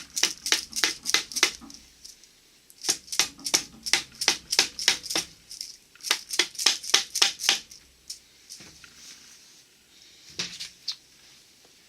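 Quick, light metallic taps on a plate of a Borg-Warner T-10 four-speed transmission, tapped to work it loose: three runs of rapid strikes, about five a second, with short pauses between, then a few scattered taps near the end.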